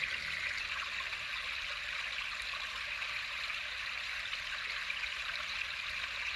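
Running water trickling and splashing steadily, an even hiss with no change in level.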